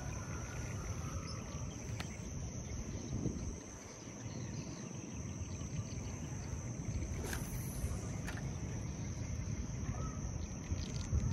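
A steady, high-pitched insect chorus, like crickets, over a low wind rumble on the microphone, with a few faint clicks.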